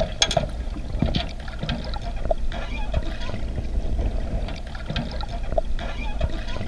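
Water in a pool heard from below the surface: a steady muffled rumble of churning water and bubbles, with many scattered small clicks and knocks.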